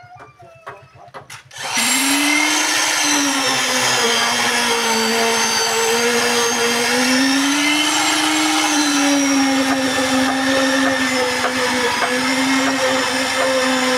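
Handheld electric concrete poker vibrator switched on about two seconds in, then its motor runs with a steady, loud whine whose pitch wavers slightly as the poker works through freshly poured concrete.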